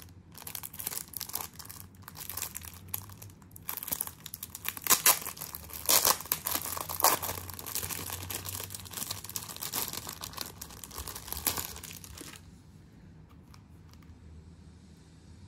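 Clear plastic packaging crinkling and crackling as hands handle a plastic-wrapped schedule book and pull the wrapping open, loudest around the middle. The crackling stops about three seconds before the end.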